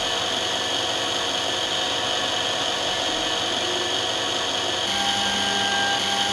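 Automatic lens drilling machine running, its drill spindle making a steady high whine as it drills a hole in an eyeglass lens. About five seconds in, a lower steady hum joins in.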